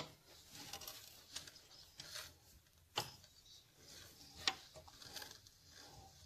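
A few faint, sharp clicks and light metal handling sounds as oil is squirted from a long-spouted oiler into the crankcase bearing of a Triumph 650 twin engine.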